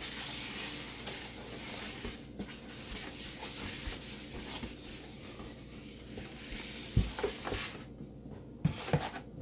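A cloth wiping and scrubbing the inside of a plastic storage bin, a steady rubbing noise, with a few light knocks of the bin being handled near the end.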